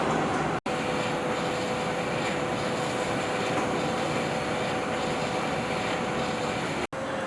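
CNC machine running steadily in a machine shop, a constant machining noise with a steady whine over it. The sound drops out for an instant twice, and the whine's pitch changes at each break.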